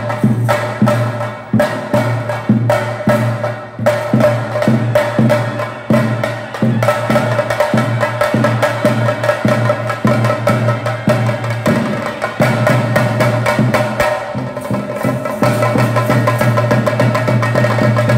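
Traditional temple drumming for a theyyam: sharp stick strokes on drums in a quick, even rhythm over a steady droning tone. Near the end the separate strokes blur into a denser roll.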